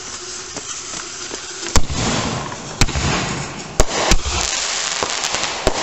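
Consumer fireworks going off close by. Four loud bangs, about a second apart, rise over a rushing hiss and crackle that starts about two seconds in. A quicker run of sharper cracks follows near the end.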